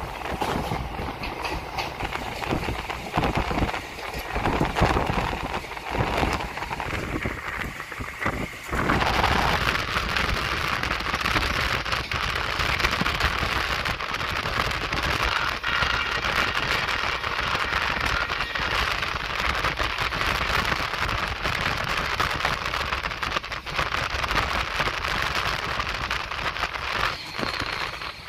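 Sabroom–Sealdah Kanchanjungha Express running, heard from an open door: the wheels' clatter and knocks at first, then from about nine seconds in a steady, crackling rush of noise as the train gathers speed.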